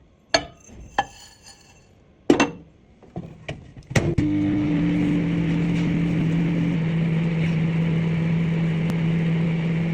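A few clicks and knocks, one ringing like a dish, then about four seconds in a microwave oven starts and runs with a steady hum.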